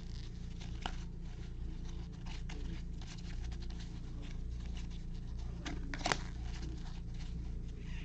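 2021 Topps Series 1 baseball cards rustling and sliding against each other as gloved hands flip through a freshly opened pack, with scattered small clicks over a steady low hum. The sharpest click comes about six seconds in.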